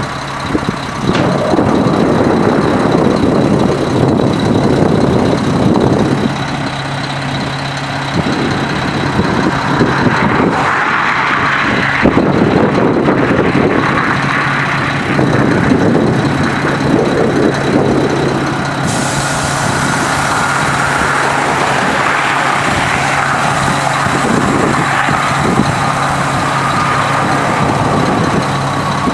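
Mack E7 12.0-litre straight-six diesel engine of a 2000 Mack RD688S dump truck running steadily.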